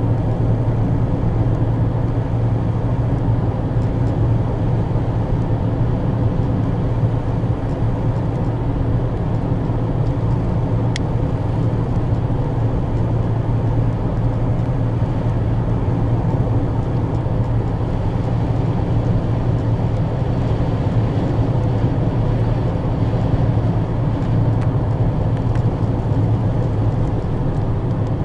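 Steady road and engine noise heard from inside a car's cabin while it cruises along a highway, with a constant low hum.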